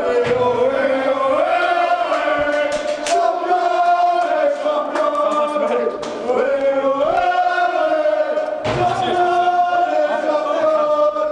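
A group of men singing a football supporters' chant together in unison, one melody of held notes sliding up and down between them, with a few sharp beats.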